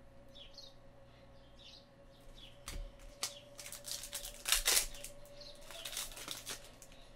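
Trading cards flicked and slid against one another by hand as a stack is sorted, with soft rustling and a few sharp card snaps, the loudest a little past halfway.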